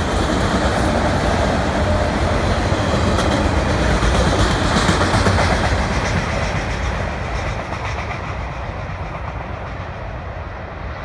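Freight train of autorack cars rolling past, steel wheels clattering over the rail joints. The sound fades over the last few seconds as the end of the train passes and draws away.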